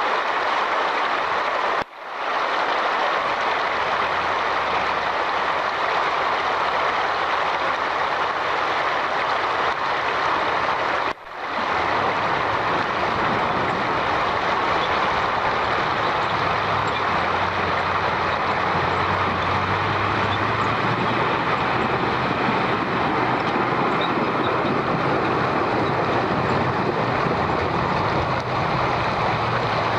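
Steady, loud running noise of a heavy vehicle such as a truck, with a low engine hum underneath, broken by two abrupt cuts about two and eleven seconds in.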